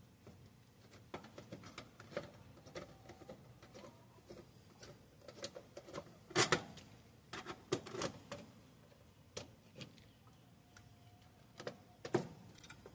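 Irregular small clicks and rustles of wires and spade terminals being handled at an air-conditioner condenser's capacitor, with louder knocks about six seconds in and again near the end.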